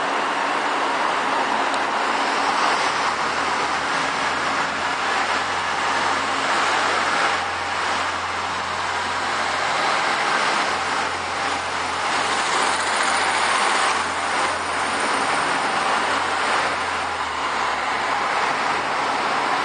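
Irish Rail diesel commuter trains moving through a station, a steady rumble of running gear and wheels on rails. A low engine drone comes in a few seconds in and fades near the end, with a few faint clacks in the middle.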